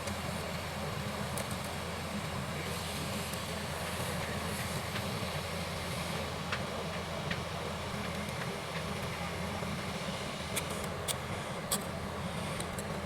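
Steady low mechanical hum of a running machine, with a few sharp clicks near the end.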